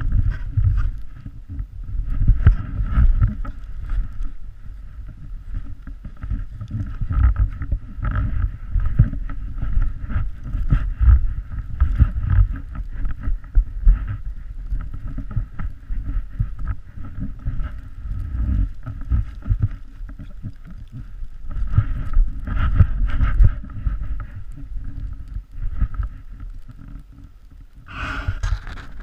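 Wind buffeting the microphone of a pole-mounted action camera as a heavy, gusting rumble, over the hiss of a board sliding through deep powder snow. Near the end a brighter brushing sound rises as a hand sweeps past a snowy fir branch.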